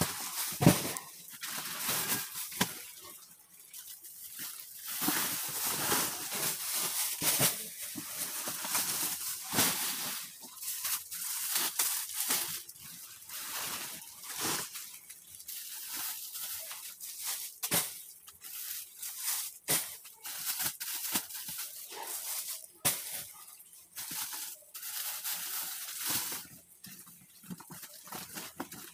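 Plastic sacks and wrapping rustling and crinkling as bales of clothing are pulled and handled, with a thump about a second in.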